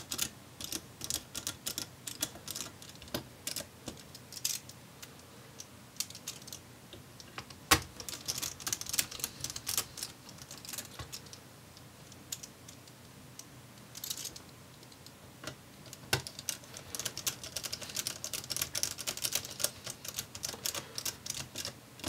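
Small Phillips screwdriver driving laptop fan screws back in: runs of fast, light clicks from the bit and screws, quieter for a stretch in the middle, with one sharper click about eight seconds in.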